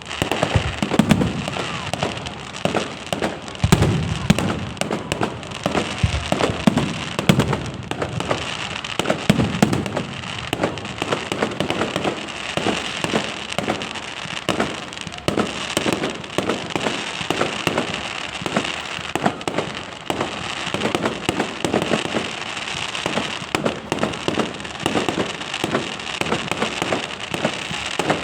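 Fireworks display: a rapid, irregular run of bangs and crackling, with heavier booms in the first ten seconds or so.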